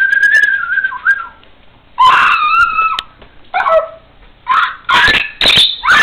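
Whistling: one long held note that steps down in pitch after about a second, then a louder whistled call about two seconds in and a string of short, shrill whistles and calls to the end.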